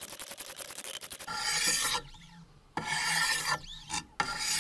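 400-grit diamond stones of a Wicked Edge guided sharpener scraping along both sides of a century-old steel sickle blade. The sound is a gritty rasp, quick short strokes at first, then three longer strokes with short pauses between them. This is the 400-grit stage, refining the bevel.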